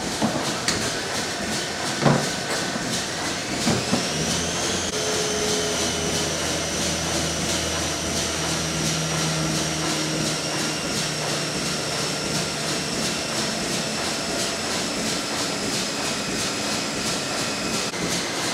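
Yarn winding and twisting machines running: a steady mechanical hum and hiss, with a high whine that rises about four seconds in and then holds. A few sharp knocks come in the first few seconds.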